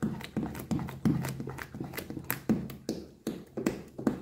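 Wooden spoon stirring a thick liquid laundry-soap mixture in a plastic basin, knocking against the basin about three times a second.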